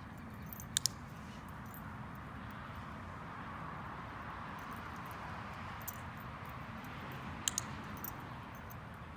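Dog-training clicker clicking twice, each a sharp double click, about a second in and again near the end, marking the dog stepping into the box. Under it runs a steady faint outdoor hiss.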